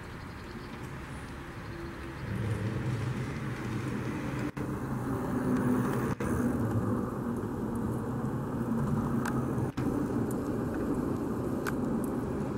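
Steady low rumble of a vehicle engine and road traffic, getting louder about two seconds in. The sound drops out very briefly three times.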